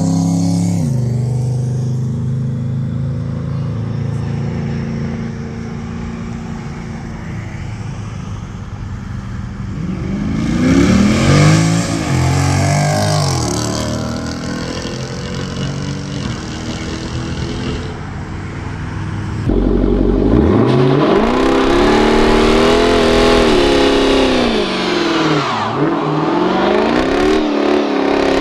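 Jeep Grand Cherokee SRT's 6.4-litre Hemi V8 through a Corsa cat-back exhaust, running low and steady, then revved up and back down about ten seconds in. In the last third it is revved repeatedly, its pitch rising and falling, and it is louder.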